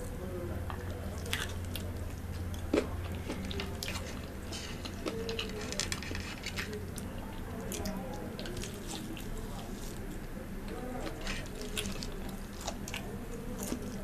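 Close-miked biting and chewing of a KFC Double Down, its crisp fried-chicken breading giving sharp crunches and crackles between softer wet mouth sounds. A steady low hum runs underneath.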